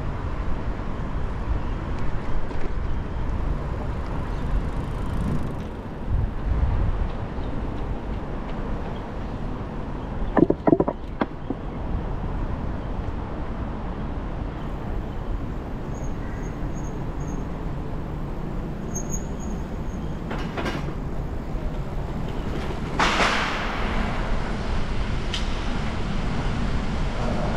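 Steady rumble of city traffic. There is a brief clatter about ten seconds in, a few short high beeps a little later, and a loud hiss about 23 seconds in.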